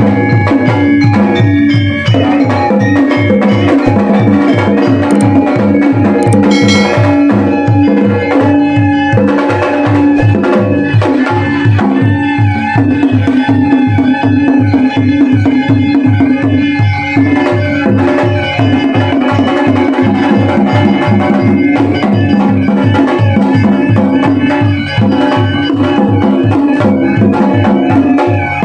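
Sundanese gamelan ensemble playing traditional music: hand drums keep a quick, steady beat under ringing tuned metal percussion.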